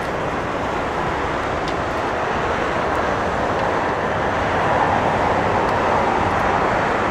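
Jet airliner engines running at an airport, a steady rush of noise that slowly grows louder.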